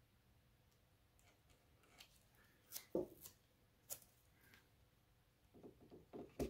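Quiet handling of masking tape: mostly near silence, with a few sharp clicks and taps about three and four seconds in, then soft rubbing and pressing sounds near the end as the tape is pressed down onto the metal litho-plate panel.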